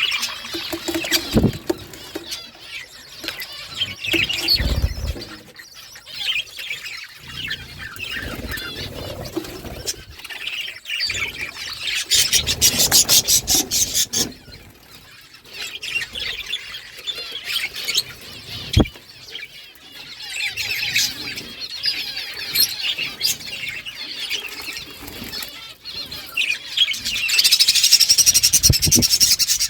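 Pet budgerigars chattering and chirping continuously, with bursts of fast, buzzy trilling about twelve seconds in and again near the end, and a few soft knocks in between.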